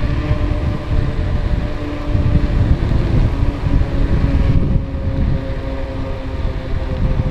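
Wind buffeting the microphone of a camera on a moving bicycle, a loud low rush with tyre noise on asphalt and a faint steady hum above it.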